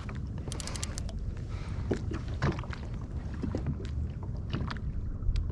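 Wind rumbling on the microphone and water moving against a fishing kayak's hull, with scattered small clicks and knocks, a quick run of several about half a second in.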